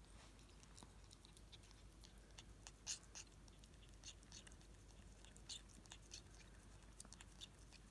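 A ferret licking and chewing cream and Christmas pudding from a bowl: faint, irregular wet smacks and clicks, the loudest about three seconds in.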